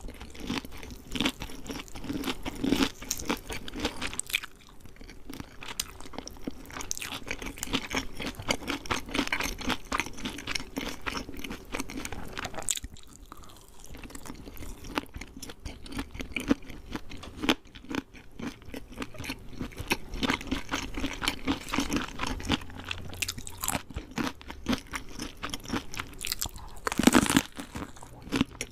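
Chewing and crunching of KFC fried chicken, a dense run of crisp crackles with two brief lulls and a loud crunch near the end.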